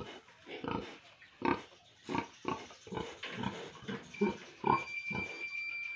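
A sow grunting in short, separate grunts, about two a second. About four seconds in, the handheld pregnancy detector pressed to her belly starts a steady high beep under the grunts.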